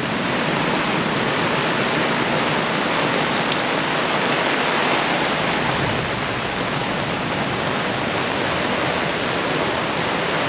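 Heavy thunderstorm rain bucketing down in a steady, even hiss, with no let-up.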